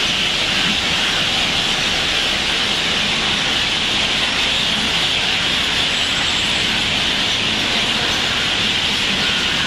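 Steady din of a large flock of roosting crows and other birds calling all at once, so dense that no single call stands out.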